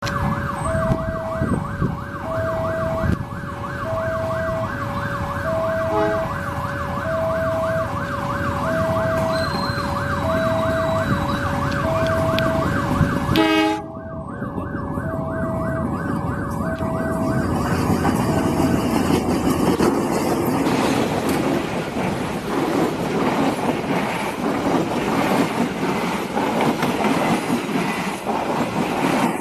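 Level-crossing warning alarm sounding, two tones alternating about twice a second with a fast warble. After an abrupt cut about halfway through, the alarm fades while a KRD diesel passenger train passes close, its wheels and running noise on the rails filling the rest.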